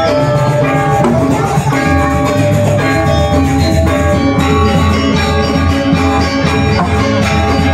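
Balinese gamelan playing: many ringing metal percussion tones over a steady low sound, continuous throughout.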